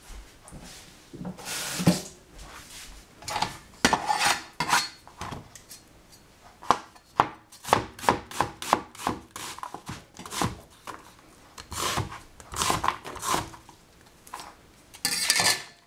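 Cleaver slicing a red onion on a plastic cutting board: a run of quick, irregular knocks as the blade cuts through and taps the board, fastest in the middle, with a couple of longer rasping noises near the start and end.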